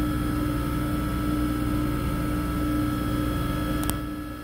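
Bench grinder motor running steadily with its abrasive wheel spinning free at about 3,600 RPM, nothing being ground, a constant hum with a steady whine. A single short click comes a little before the end, and the sound then dips briefly.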